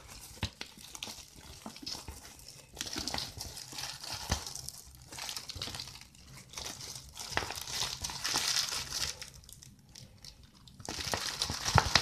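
Large decorative wall sticker sheet in its clear plastic film crinkling and crackling as it is handled, in several bouts with short pauses.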